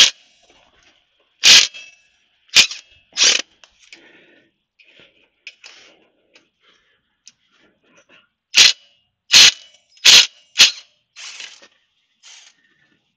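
Short, sharp metal-on-metal knocks from a tool working the screws of a motorcycle's aluminium primary chain case cover: about four in the first few seconds, then a pause, then a quicker run of five from about eight and a half seconds in.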